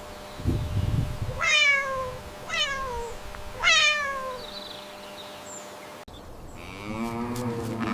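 A domestic cat meows three times, about a second apart, each meow falling in pitch, after a brief low rumble. Near the end a cow begins a low moo.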